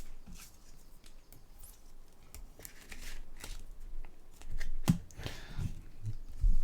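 Topps Chrome trading cards being handled and flipped through: scattered light clicks and taps, with a sharper click and a brief rustling slide about five seconds in.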